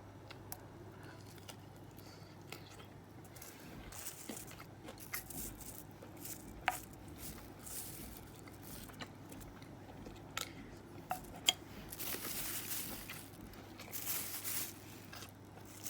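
A person eating fried rice and chicken: close-up chewing and mouth sounds with scattered light clicks and scrapes, over a faint steady low hum.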